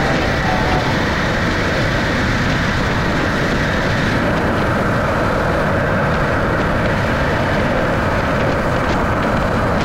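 Subaru BRZ driving at speed: steady road, tyre and engine noise with no changes in pitch or level.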